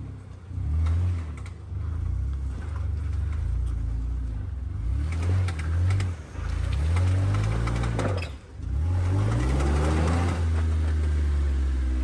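Jeep engine revving up and down again and again under load as the Jeep struggles to climb a steep off-road obstacle, then held at steady high revs for the last few seconds, with a few sharp knocks along the way.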